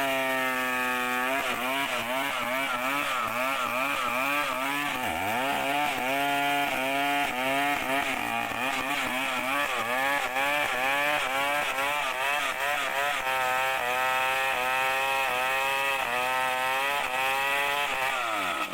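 Chainsaw cutting into a large bangkirai hardwood trunk, its engine pitch repeatedly sagging under load and picking back up as the bar works through the wood. The revs fall away sharply near the end.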